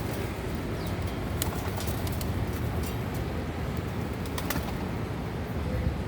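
A flock of pigeons and small birds, with a couple of short sharp sounds about a second and a half and four and a half seconds in over a steady low rumble.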